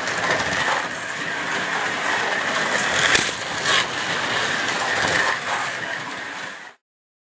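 Carrera Go slot cars running along the plastic track with a steady whir, and two sharp clattering knocks about three seconds in as a car crashes off the track. The sound cuts off suddenly near the end.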